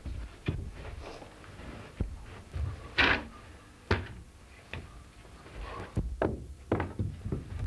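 Irregular thumps and knocks from a performer stamping and lurching across a stage floor. A brief rush of noise comes about three seconds in.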